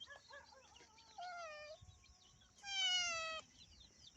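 Two drawn-out, high-pitched calls from a small animal, each falling slightly in pitch. The second, about two and a half seconds in, is the louder; a few faint short chirps come before them.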